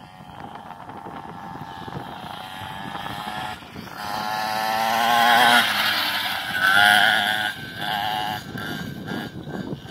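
Children's mini bike motor running as the bike rides closer, swelling to its loudest a little past the middle with a wavering pitch, then easing off.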